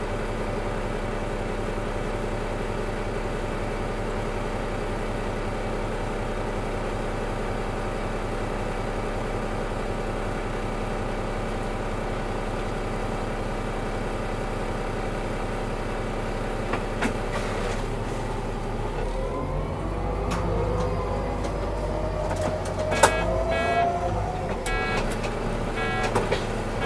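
Solaris Urbino 8.9LE city bus heard from inside, idling with a steady engine hum while stopped. About two-thirds of the way through it pulls away: the engine note rises and a few rattles and knocks come from the bodywork.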